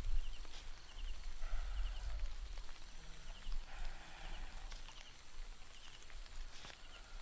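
Outdoor forest ambience: a steady low rumble of wind against the tent, with a small creature's short triple chirp repeating about once a second and a few brief animal calls.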